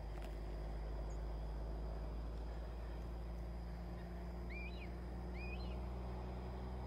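Steady low rumble, with a bird giving two short chirps about a second apart a little past halfway.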